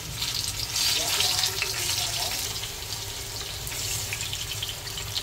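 Saba bananas sizzling and crackling as they fry in hot oil in a pan, with a low steady hum underneath.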